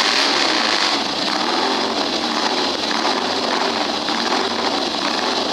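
Vintage auto race motorcycle engine running steadily and loudly.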